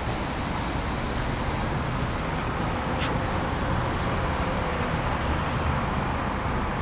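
Steady outdoor background noise with a low rumble, like distant road traffic, with a faint hum through the middle.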